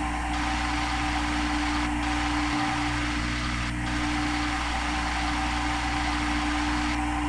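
CNC machine running, with a constant hum and a steady whine over a haze of machine noise. The sound shifts slightly every couple of seconds.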